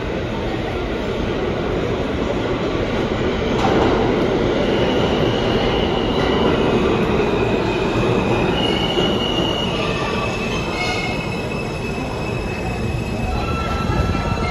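Alstom R160A-1 subway train pulling into an underground station, its steady rumble echoing off the platform walls. From about four to eleven seconds in it gives several high-pitched squeals at shifting pitches as it slows along the platform.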